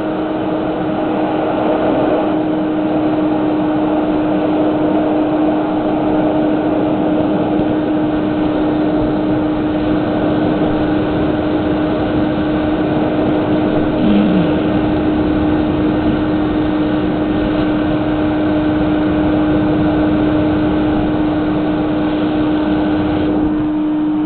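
Vacuum cleaner motor running on its blowing end with a steady hum, inflating a garbage-bag airbag in a homemade model tractor cab. A brief falling squeak comes about halfway through.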